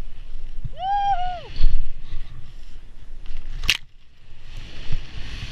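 Skis running through deep powder snow with a steady rumble of wind on the camera microphone. About a second in comes a short two-note whoop, then a heavy thump, and a sharp click a little past halfway.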